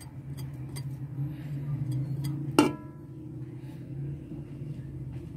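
A metal utensil strikes a cooking pot once, a sharp clink with a short ringing tail about halfway through, over a steady low hum.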